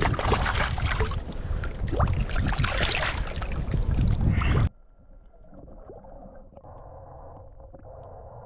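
Water splashing and sloshing around a sea kayak, with wind rough on the microphone and many small knocks. About halfway through it cuts off suddenly to a quieter, muffled steady noise.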